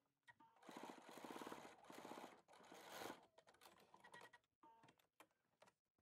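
Bernina B570 sewing machine stitching at a quick, even rate for about two and a half seconds, faint, then stopping; a few soft clicks follow.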